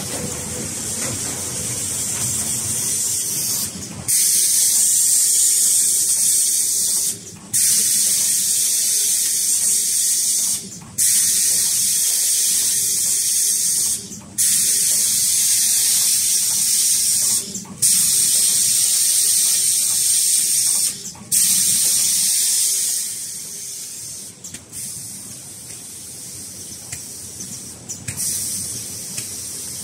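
Packing-line machinery with a loud, steady high hiss of air, broken by short gaps about every three and a half seconds; the hiss drops to a softer level about three quarters of the way through.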